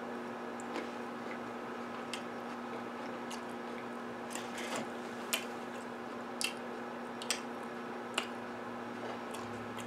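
A person chewing a mouthful of red grapes, with a handful of soft, scattered mouth clicks over a steady low hum of the room.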